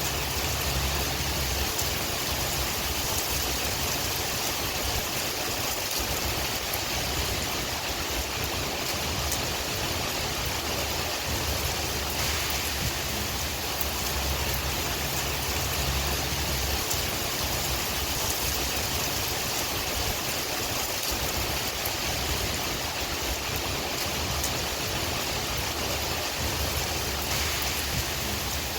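Steady rain falling, a constant hiss, over a low wind rumble that swells and fades every few seconds.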